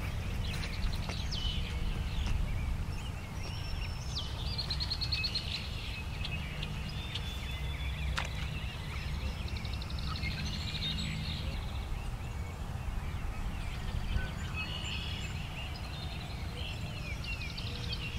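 Songbirds singing and calling around a pond, with several fast high trills and scattered chirps, over a steady low rumble.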